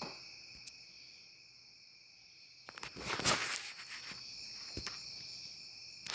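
Faint steady chirring of night insects, such as crickets, in the background, with a brief rustle of the phone being handled about three seconds in.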